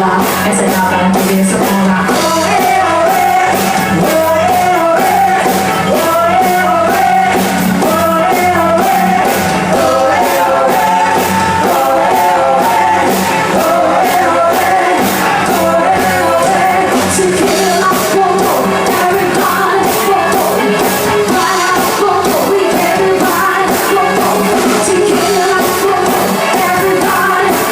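Rock band music with a singer over a steady drum beat, loud throughout.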